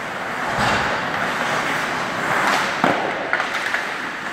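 Ice hockey play: a steady rush of skates and rink noise, with a few sharp knocks of sticks, puck or boards, one about half a second in and two close together a little before the end.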